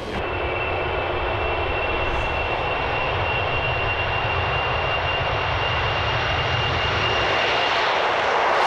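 Vickers VC10's four rear-mounted Rolls-Royce Conway jet engines at take-off power as the aircraft lifts off and climbs away. A steady high whine rides over the jet noise, and the sound grows louder towards the end as the aircraft comes closer overhead.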